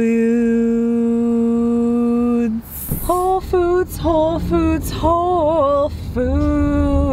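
A woman singing in a car: one long held note, then a short run of wavering notes, then another held note, with the car's low road rumble beneath.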